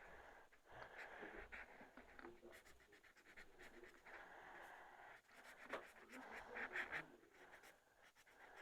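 Faint scratching of colouring strokes on paper, in short irregular runs.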